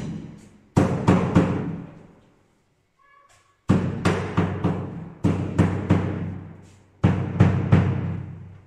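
Hammer blows knocking wooden door casing trim into a door frame. The blows come in four bursts of three or four quick strokes each, and each burst rings out and fades over about a second.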